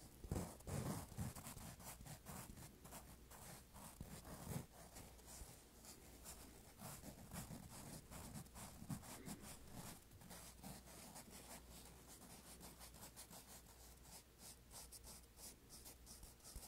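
Fingertips scratching and rubbing foam blocks: a faint, quick, continuous run of short scratches, with a few soft squishes in the first second or so and again about four and a half seconds in.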